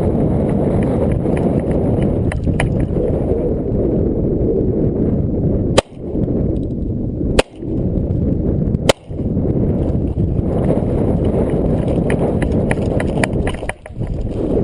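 Three sharp 9mm pistol shots from a Glock 19, about a second and a half apart, the level dipping briefly after each. Under them a steady low rumble of noise on the helmet-mounted camera's microphone, with a few fainter clicks.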